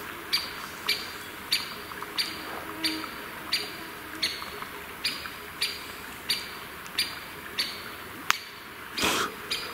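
A bird calling the same short note over and over, about three calls every two seconds, steady throughout. Near the end there is a single sharp click, then a brief rustle.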